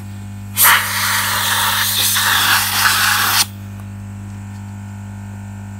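Aerosol can of freeze spray hissing in one spurt of about three seconds, starting about half a second in and cutting off suddenly; the can is almost empty.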